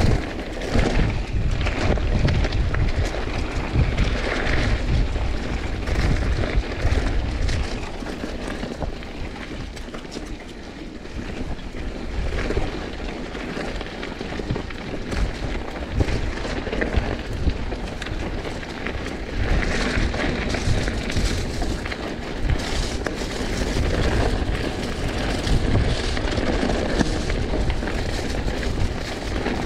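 Wind buffeting an action camera's microphone as a mountain bike rolls along a dirt singletrack, with a heavy rumble of tyres and frame over the rough ground and scattered small rattles. It eases off for a few seconds about a third of the way in, then picks up again.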